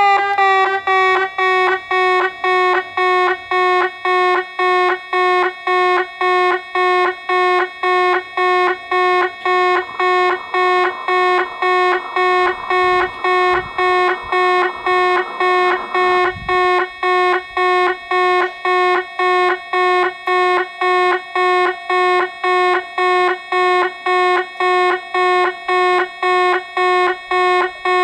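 Railway level crossing warning bell ringing in a steady repeating clang, about two strikes a second, signalling that a train is approaching.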